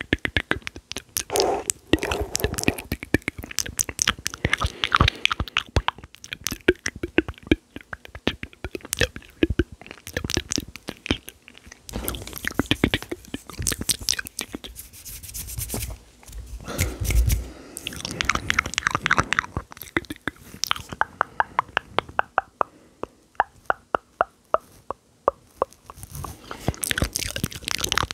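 Mouth sounds made up close for ASMR: fast runs of sharp lip and tongue clicks and pops, broken by short pauses, with a heavier, deeper burst past the middle.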